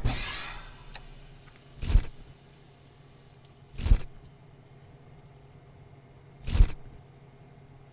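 Three short, sharp sound effects from an augmented-reality app, about two seconds apart, as a virtual 3D model comes apart into its parts. A hiss fades out over the first second or so.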